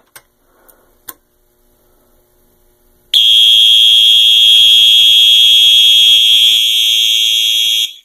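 Fire alarm on a Simplex 4001 system sounding a loud, steady, high-pitched alarm tone, set off by an elevator call button whose contacts are wired into the panel's zone 2. It starts suddenly about three seconds in and cuts off abruptly just before the end.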